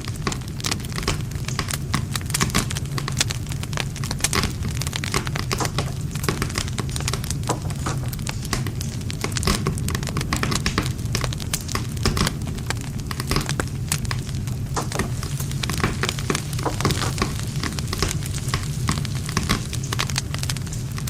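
Wood campfire burning, with dense irregular crackling and popping over a steady low rumble of the flames.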